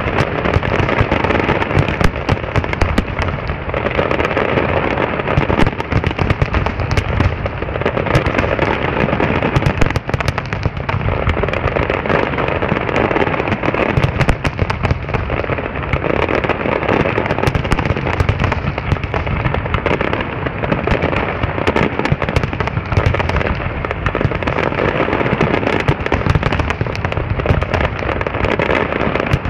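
Fireworks display: a dense, unbroken barrage of explosions and crackling bursts, many bangs a second overlapping.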